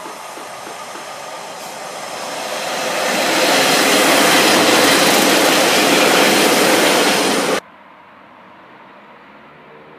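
Northern Rail diesel multiple unit running past close by, its noise building to a loud rush about three seconds in. The sound cuts off suddenly near the end, leaving only a faint steady background.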